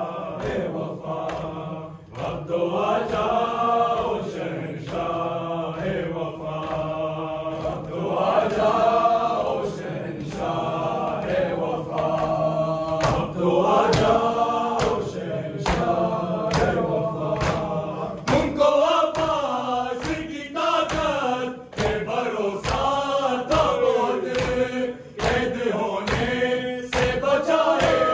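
A group of male voices chanting a Muharram noha, a mourning lament, with sharp, regular strikes of matam (chest-beating) keeping time underneath.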